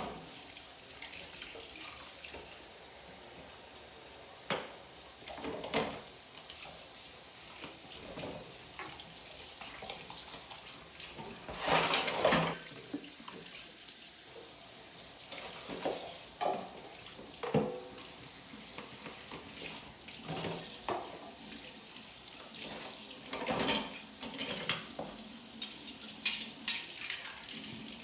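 Dishes and cutlery clinking as they are washed in a kitchen sink, with water running from the tap. There is a louder rush about halfway through and a quick run of clinks near the end.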